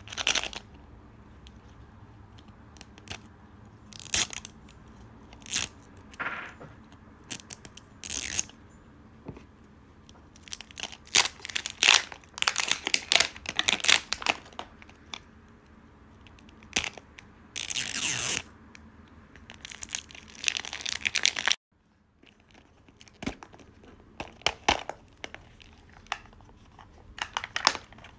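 A toy capsule ball being unwrapped by hand: its thin plastic wrap crinkles and tears in irregular bursts, with sharp plastic clicks as the ball is pulled open. The sound cuts out briefly about three-quarters of the way through.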